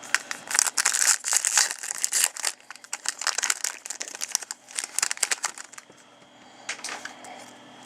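Plastic trading card pack wrapper crinkling and tearing as it is handled and opened, in a dense run of crackles that dies away about two-thirds of the way through, with a few more near the end.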